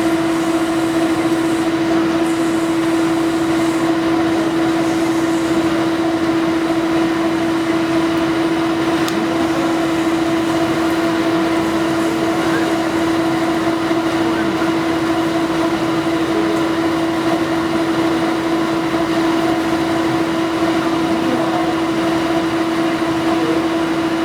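CNC milling machine running at a steady speed: a constant pitched hum with fainter higher tones over steady machine noise, unchanged throughout.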